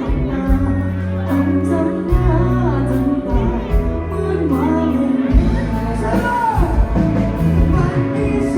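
Live bar band playing loud pop music with a singer over a bass line and drums.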